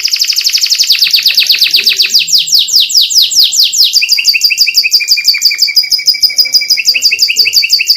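Domestic canary singing a rapid, even trill of quick down-slurred notes. About four seconds in it switches to a lower-pitched trill, one of the varied phrases of a full canary song.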